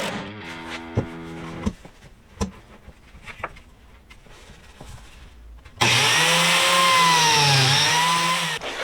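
Background guitar music ends in the first couple of seconds, followed by a few light knocks. Then a biscuit joiner runs for about three seconds, cutting biscuit slots in shelf boards, its motor whine dipping in pitch and recovering as the blade bites into the wood.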